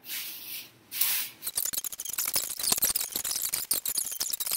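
Plastic carrier bags crinkling and rustling as they are taken out and unfolded by hand, turning into a dense run of crackles from about a second and a half in.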